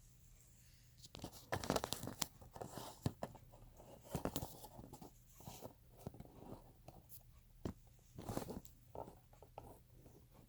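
Packing material crinkling and tearing in short irregular bursts, with scattered clicks and knocks from items being handled and lifted out of a suitcase.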